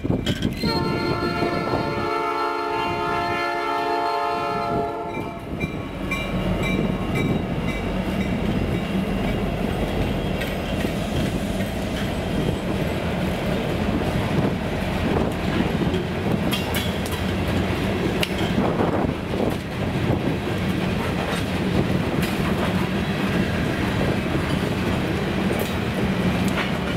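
Diesel freight locomotive sounding its multi-tone air horn in one long blast for about the first five seconds while approaching a grade crossing. Then a long string of covered hopper cars rolls past close by, a steady rumble with wheels clacking over the rail joints.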